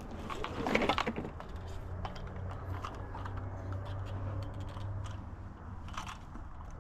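Scrap metal clicking and rattling in a bucket as it is handled, with a louder clatter about a second in, over a steady low hum.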